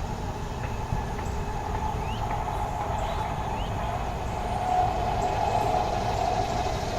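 Steady rumble of city traffic, growing a little louder about five seconds in.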